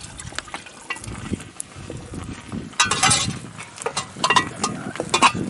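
Scattered clinks and scrapes of steel cooking plates, a spoon and a pot being stirred over a wood fire, with a louder scraping rustle about three seconds in and a run of sharp metallic clinks near the end.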